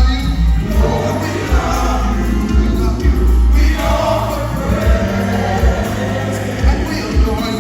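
Live gospel music: a group of voices singing together over a band with heavy bass and drums.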